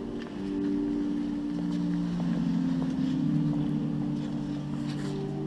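Church organ playing slow, sustained chords in the low-middle register, the held notes shifting every second or two.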